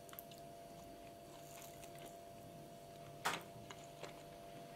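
A single short bite into a chocolate-glazed choux eclair about three seconds in, then a few faint mouth clicks of chewing, over a low steady room hum.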